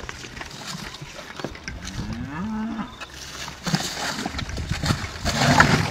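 Wet tearing, rustling and knocking of cowhide being pulled and knifed off a hanging beef carcass, loudest near the end. About two seconds in there is a short low call that rises and then holds.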